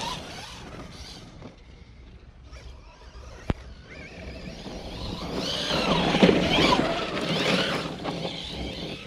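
Losi Hammer Rey 1/10-scale RC truck's electric motor whining and rising and falling in pitch as the truck drives by on a dirt track, its tyres crunching on the gravel, louder from about five seconds in. A single sharp click comes about three and a half seconds in.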